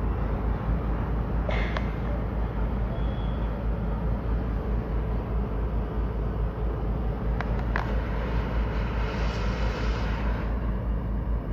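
Steady outdoor rumble of traffic and a demolition excavator working below, with a few short sharp knocks about one and a half and seven and a half seconds in.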